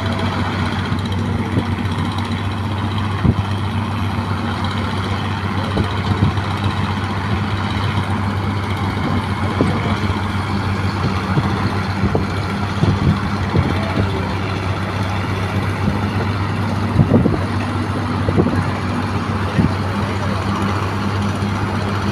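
Excavator's diesel engine running steadily with a low drone, with occasional short knocks and clunks of the machine at work.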